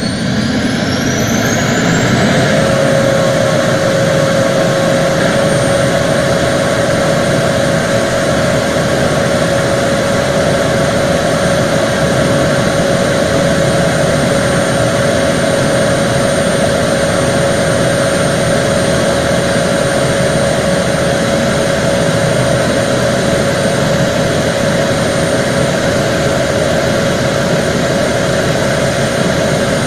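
Antonov An-12's Ivchenko AI-20 turboprop engines running. A turbine whine rises in pitch over the first two seconds or so, then holds steady with the propellers' steady drone.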